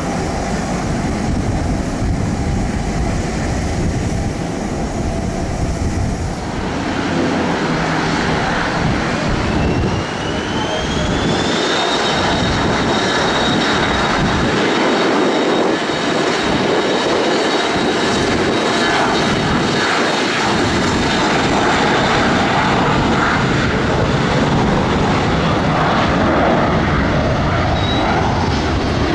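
Loud jet aircraft engine noise. After a change about six seconds in, a business jet's turbofan whine rises in pitch for a few seconds and then holds steady over a dense rumble, as the engines spool up to takeoff power.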